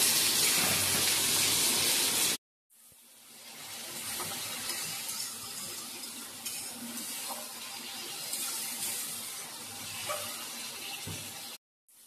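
Sliced onions sizzling loudly as they fry in oil in a non-stick kadai, stirred with a spatula. After a sudden cut about two seconds in, the onion-and-masala mixture sizzles more quietly, with a few light scrapes of the spatula against the pan.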